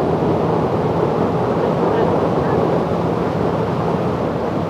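Steady wind noise rushing over a microphone tucked into a motorcycle helmet's cheek pad at highway speed, with the motorcycle's engine humming faintly underneath.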